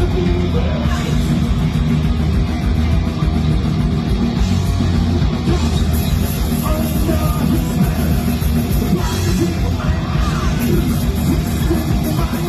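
Thrash metal played by a band: heavily distorted electric guitars, bass and fast drums, loud and continuous.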